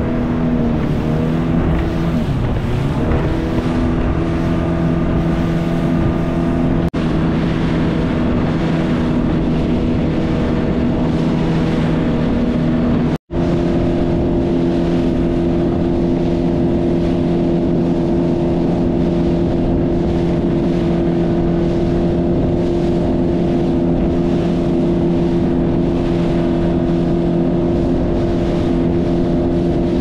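Motorboat engine running steadily under way. Its pitch wavers for the first few seconds, then holds even, and the sound breaks off for an instant about thirteen seconds in.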